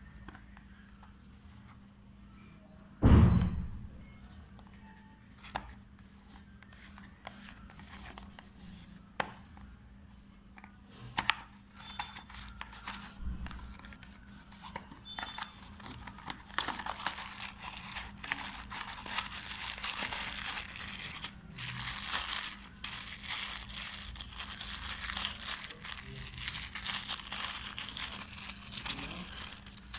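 Unboxing an earphone box: a loud thump about three seconds in, then scattered clicks and taps as the cardboard box is handled and opened. From about halfway on comes steady crinkling of the plastic bag that holds the earphones as it is pulled out.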